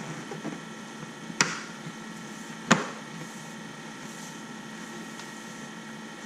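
Two sharp clicks about a second apart as the dash trim cover is pressed and knocked into place on the dashboard, over a steady faint hum.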